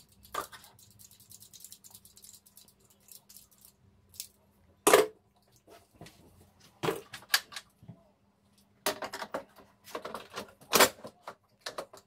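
Light clicking as a screwdriver fastens a uPVC door's multipoint lock gearbox to its metal locking rail, then several loud metallic knocks and clatters as the long rail is lifted and handled, the loudest about five seconds in and near the end.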